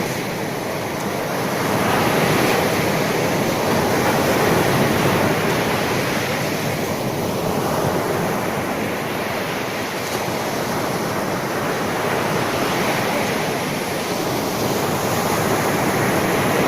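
Sea waves washing on the shore: a steady rushing surf that swells and eases every few seconds.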